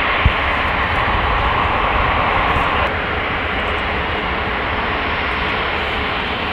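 Airbus A380's four Rolls-Royce Trent 900 jet engines running at low taxi thrust, a steady rumble and hiss. There is one brief thump just after the start, and the level drops a little about three seconds in.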